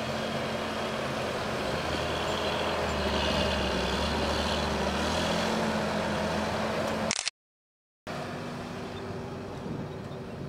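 John Deere 8320 tractor's six-cylinder diesel engine running steadily under load while pulling an eight-furrow Kverneland plough. Just past the middle the sound cuts off to silence for about a second after a sharp click, then comes back quieter.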